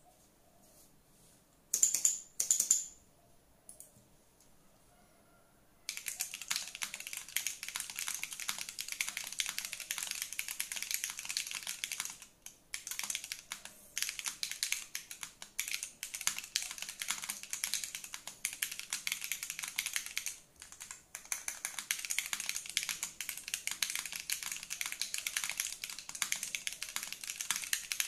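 Fast, steady typing on an Elite60 mechanical keyboard with Ashes switches on an aluminium plate, O-ring mounted, with PBT keycaps. It gives dense, crisp key clicks that start about six seconds in and break off briefly twice. Before the typing, two louder knocks come about two seconds in.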